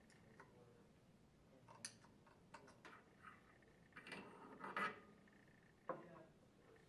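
Near silence broken by a few faint clicks and light taps: a gear pump's mechanical seal seat and a screwdriver being handled and set down on a wooden workbench. The clearest taps come a little after halfway and again near the end.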